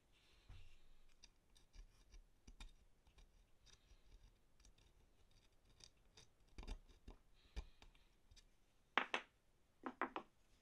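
Parts of an old wooden jack plane being taken apart by hand: scattered light clicks and scrapes of wood and metal, then a louder rattling clatter about nine seconds in and three quick knocks a second later.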